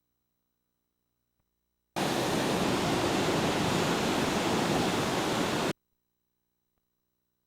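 Steady loud hiss, like static, starting abruptly about two seconds in and cutting off sharply nearly four seconds later, with near silence either side.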